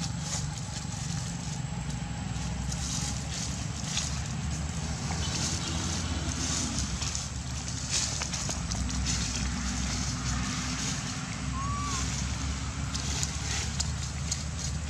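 Dry leaves rustling and crackling under monkeys moving on leaf litter, over a steady low rumble, with one short chirp about twelve seconds in.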